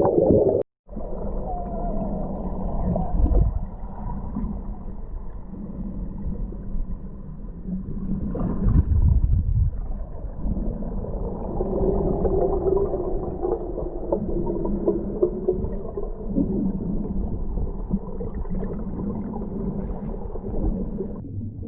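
Muffled underwater sound from a camera held under water: a continuous low rumble of moving water with gurgling, all dull and without high tones.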